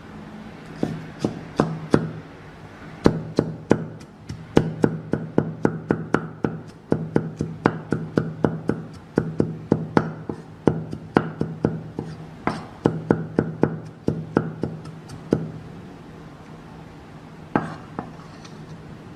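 Knife chopping on a cutting board: a long run of sharp knocks at about three a second, stopping near the end with one last knock.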